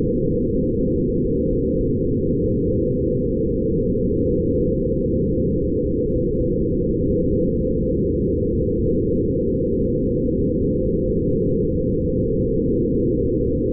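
Steady, grainy low drone made by running photographs of light through sound-editing software, a meditative ambient texture with nothing in the higher pitches.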